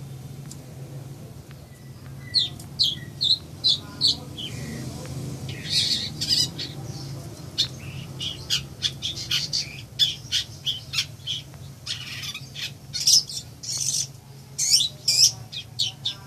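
Long-tailed shrike (cendet) singing: a run of short, quick chirps and sweeping high notes in clusters, with a few harsher squawky notes, over a steady low hum.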